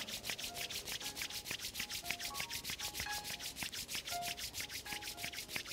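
Palms rubbed together briskly to warm them: a fast, even rasping of about nine strokes a second.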